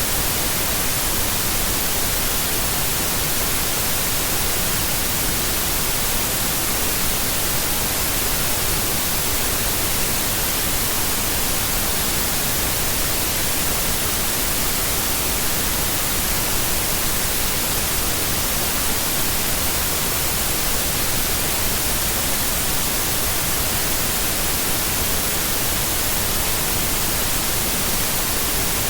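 Steady white noise: an even, unchanging hiss spread across all pitches, brightest in the highs.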